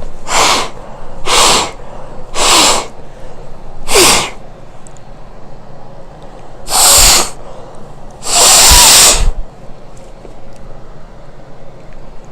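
Forceful nose blowing: four short blasts about a second apart, then two longer ones, the last about a second long. He is trying to clear a big, hard crust from his nose.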